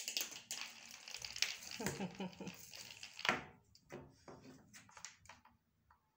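Kitten's paws scrabbling and skittering on a hard terrazzo floor as it chases and bats a small ball, a quick run of taps and scuffs with a louder knock a little after three seconds in, thinning to a few single clicks.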